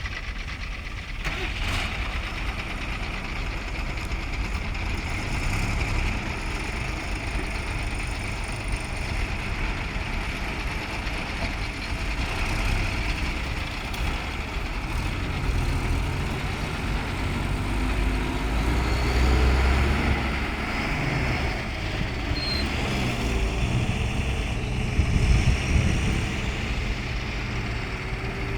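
Heavy diesel engines of an excavator and tipper trucks running steadily, with a deeper, louder swell about two-thirds of the way in and another near the end.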